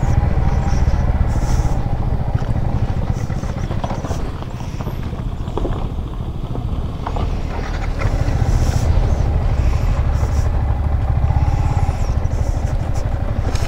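Yamaha MT-15's single-cylinder engine running at low speed over a broken, stony road. It eases off for a few seconds near the middle, where a couple of sharp knocks from the rough surface come through.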